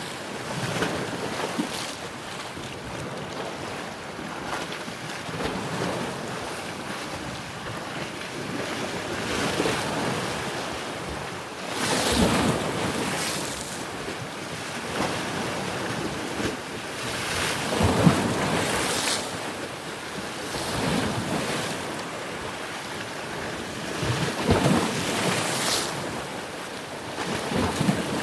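Ocean waves breaking and washing on shore, a steady surf hiss that swells with each wave every few seconds, with wind on the microphone.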